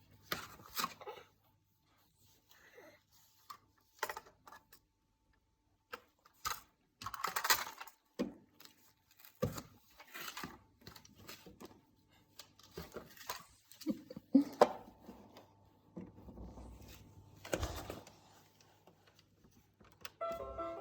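Irregular clatter and knocks of toys being handled and knocked about, a few at a time with short gaps. A tinkly electronic tune starts right at the end.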